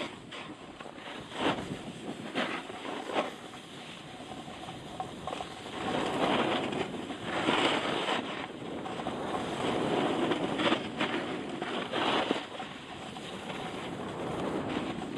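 Wind rushing over the phone's microphone during a fast downhill ride, with the hiss and scrape of edges carving packed snow, swelling and easing with each turn.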